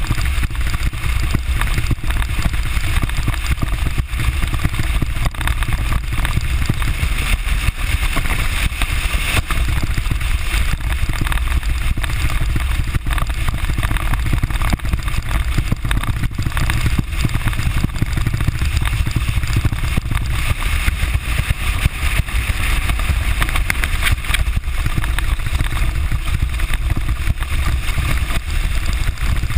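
Bass Tracker TX17 aluminum boat running across choppy water: a steady deep rumble of wind on the bow microphone and water rushing along the hull, with the outboard motor running under it.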